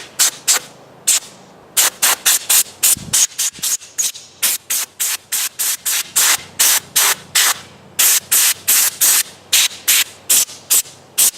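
Air-compressor blow gun fired in rapid short blasts of hissing air, about three a second with a few brief pauses, blowing debris out of a chainsaw.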